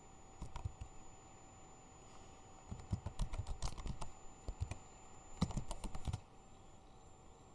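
Computer keyboard being typed on, the keys clicking in short irregular bursts that stop about six seconds in.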